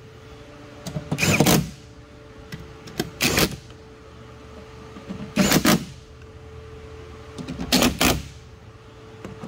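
Ryobi cordless driver spinning a socket in four short bursts, about half a second each and a couple of seconds apart, running down the window regulator's mounting bolts one after another.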